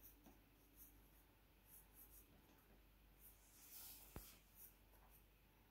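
Graphite pencil shading on sketchpad paper: faint, repeated scratchy strokes, with a slightly longer stroke and a single sharp click about four seconds in.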